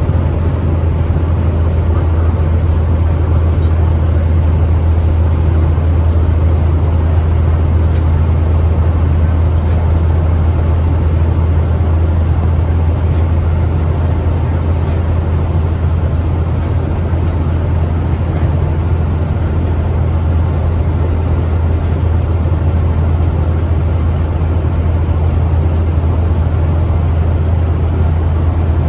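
Caterpillar 3126 inline-six turbodiesel of a Freightliner FL70 truck running while the truck is driven, a steady low drone that holds even in pitch and loudness.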